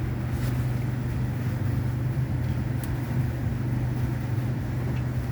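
Steady low mechanical hum with a strong low pitch, unchanging throughout.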